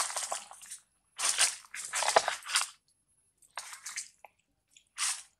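Macaques handling the camera up close: five short bursts of rubbing and scraping against the microphone, with near silence between them.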